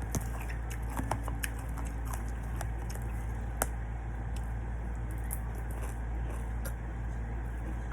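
A person eating: scattered light clicks and taps, with a steady low hum underneath.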